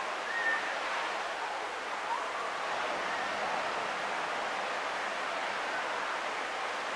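Steady wash of gentle surf breaking on a sandy beach, heard from a distance.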